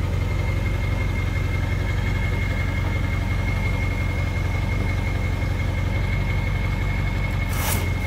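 Vehicle engine idling steadily, with a thin steady high whine over a low hum; a short scrape about seven and a half seconds in.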